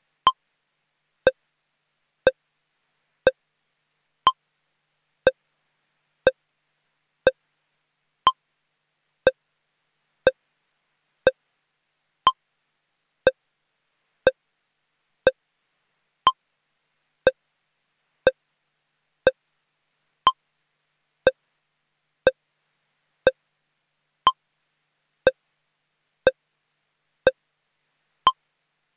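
A steady electronic tick: one short beep every second, with every fourth beep carrying an extra higher tone.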